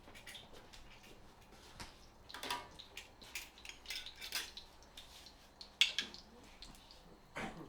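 Kitchen utensils and dishes clinking and clattering, a string of irregular knocks and clinks with one sharper clink near the end.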